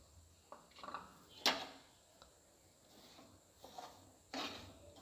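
Metal spoon scraping and stirring dry semolina in an aluminium pan as it roasts in ghee: a few separate scrapes, the loudest about one and a half seconds in and another near the end.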